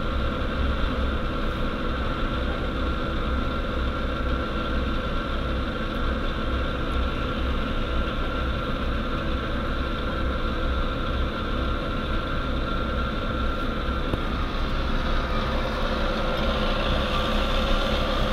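Large bus's diesel engine running steadily at low speed in a traffic jam: a deep, continuous low hum with a steady higher whine above it, growing a little fuller near the end.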